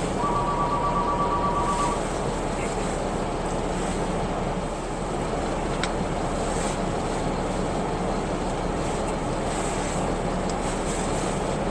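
Steady noise of a car's heater fan blowing and its engine idling, heard from inside the cabin. A two-tone electronic beep sounds for a couple of seconds at the start, and there is a single click about six seconds in.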